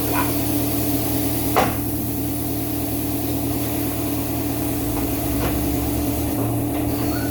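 A machine running with a steady hum. Over it come a few sharp knocks, the loudest about a second and a half in.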